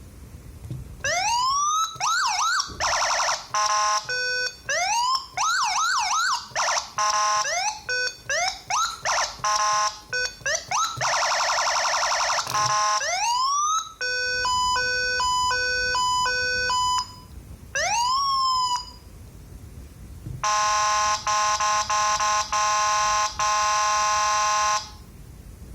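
Electronic police siren switched from tone to tone by RC remote. About a second in it starts with rising wail sweeps, then quick yelps and short blasts, a two-tone hi-lo pattern midway, and one more rising sweep. Near the end comes a steady buzzing horn tone broken by short gaps.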